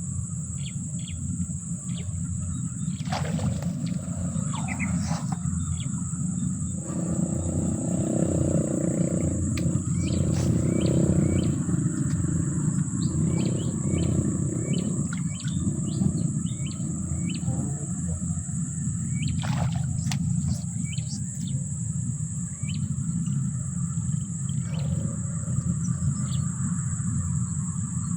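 Outdoor natural ambience: short bird chirps, repeated throughout, over a steady low rumble and a constant high-pitched hiss.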